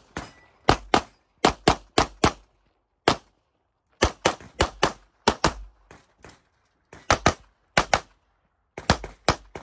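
Handgun shots fired in a fast string of twenty or more, mostly as quick pairs about a quarter second apart, with short pauses between groups: double-taps on targets during an IPSC practical-shooting stage.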